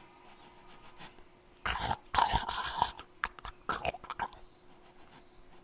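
A man imitating a creature with his voice: a run of short, sharp, animal-like snarls and grunts from about one and a half to four and a half seconds in.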